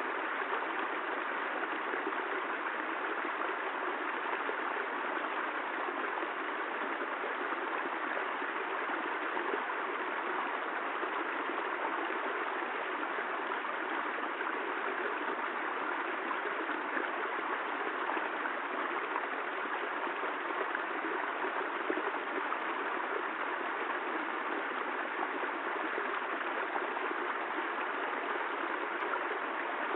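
Rain falling steadily: an even, unbroken rushing hiss with no thunder.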